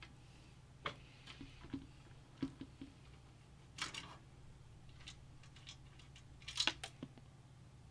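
Scattered small clicks and taps of hands handling metal PC case parts and screws, over a steady low electrical hum.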